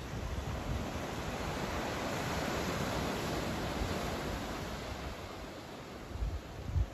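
Ocean surf washing onto the beach below, a steady rush that swells through the middle and eases off. Wind buffets the microphone in low thumps near the end.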